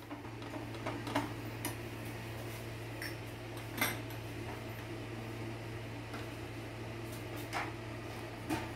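A few scattered light taps and clinks of a kitchen utensil against a pan and plate while butter is spread on a sandwich, over a steady low hum.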